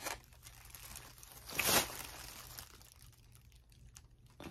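Foam takeout box being handled: a short rustle about one and a half seconds in, with soft clicks at the start and near the end.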